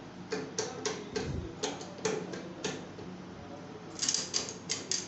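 Irregular sharp metal clicks and knocks as a Bosch common-rail diesel injector is fitted and clamped into an injector test bench's fixture, with a quicker run of clicks about four seconds in, over a steady low hum.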